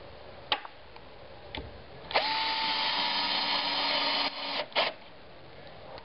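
Power drill/driver spinning up and running steadily for about two seconds, then a short second burst, driving screws into a door strike plate. A couple of small clicks come before it.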